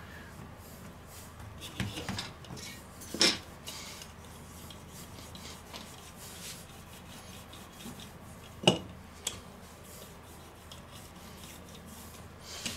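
Wooden rolling pin rolling cookie dough on a floured silicone baking mat, a soft rubbing, with a few short, sharp knocks; the loudest knock comes about three seconds in and another near nine seconds.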